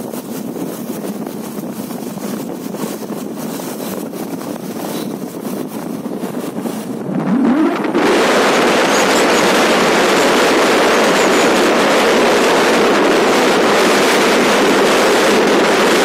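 Wind rushing over the microphone with the running noise of a vehicle moving along a road. It is quieter for the first half. A short rising engine note comes about seven seconds in, and from about eight seconds the rush is louder and steady.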